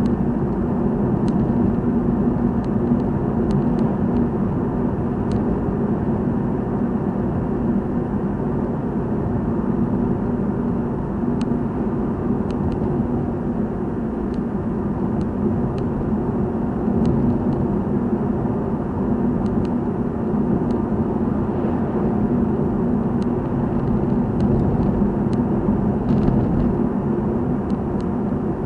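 Steady road and engine noise of a car driving at cruising speed, heard from inside the cabin, with a few faint scattered ticks.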